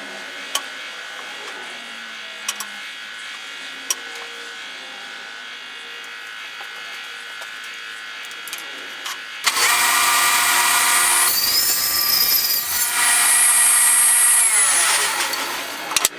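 A steady electric hum with a few clicks. About nine and a half seconds in, a power tool starts up loud, runs with a changing whine for about six seconds, louder towards the end, and winds down just before the end.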